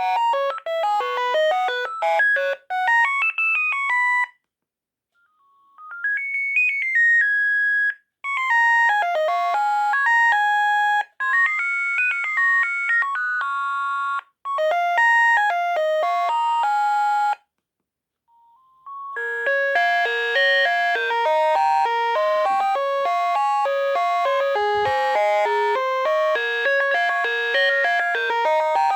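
Sagem MY 3022 mobile phone playing its ringtones, one after another: short melodies of quick high beeping notes with brief pauses between them. The last one, from about two-thirds in, is fuller, with several notes sounding together.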